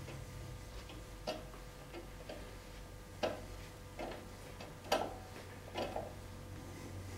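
A small hand tool clicking and scraping against metal parts at a bench vise: a few irregular light ticks, spaced a second or so apart, over a low steady hum.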